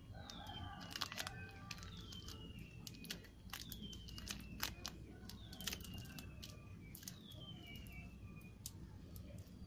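Adhesive tape crinkling and crackling with small clicks as it is wrapped by hand around the joint of a sewing machine drive belt. Behind it, a faint whistle falling in pitch repeats about five times, a second or two apart.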